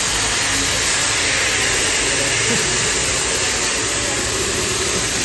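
Compressed-air jet hissing steadily, blowing a motorcycle clean during its wash.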